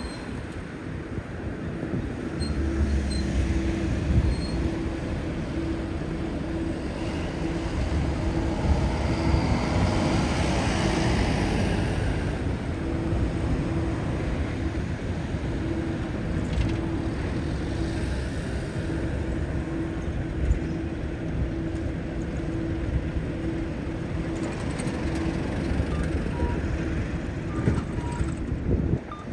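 Road traffic at a street intersection: cars and vans passing and pulling away, one of them accelerating about a third of the way in. A low tone pulses about twice a second through most of it, and short higher beeps come near the end.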